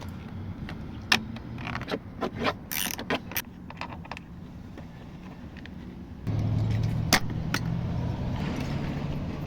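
Socket wrench working a door-panel bolt: a run of irregular metallic clicks and rattles, then a steady low engine hum that starts about six seconds in, with two more clicks in it.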